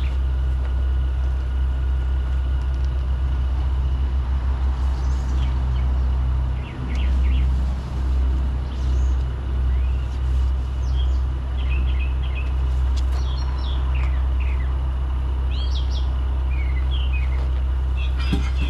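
Steady low rumble of an idling engine, swelling and dipping in a pulsing rhythm for several seconds in the middle, with birds chirping on and off.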